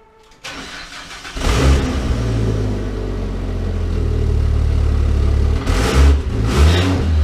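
Ford FG XR6 Turbo's 4.0-litre turbocharged straight-six cranks and starts, catching about a second and a half in. It then idles steadily and is blipped three times near the end. It exhales through a Varex valved muffler with the valve closed.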